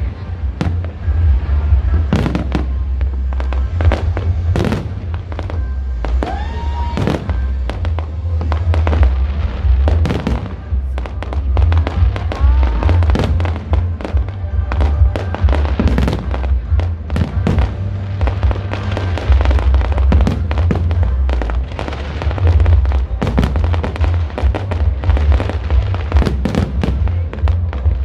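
Aerial fireworks bursting in quick succession, dozens of sharp bangs and crackles with a few whistles that rise and then fall, over loud music with a heavy bass.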